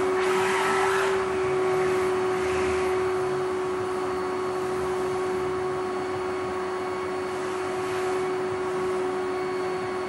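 Canister vacuum cleaner running with a steady motor whine and a rush of air at the hose nozzle, which is pressed into a cat's fur. The hiss swells briefly near the start.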